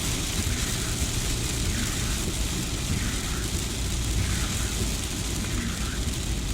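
Car driving in heavy rain: a steady rush of rain and wet-road tyre noise over a low rumble.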